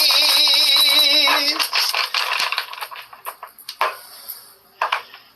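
A woman singing, holding one long note with a wide vibrato that ends about a second and a half in. After it come faint scattered clicks and light rattling.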